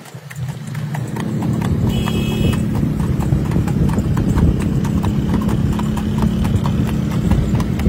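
A horse's hooves clip-clopping on asphalt in a fast, even trot as it pulls a racing cart, over a steady low hum.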